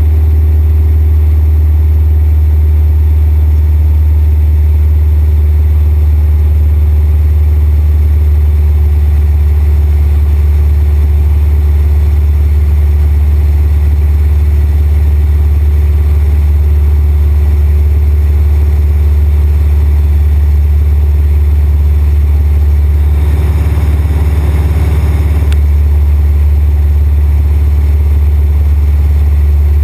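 Cessna 172's piston engine and propeller in cruise, heard inside the cabin as a loud, steady low drone. About 23 seconds in, a burst of hiss rises over it for a couple of seconds.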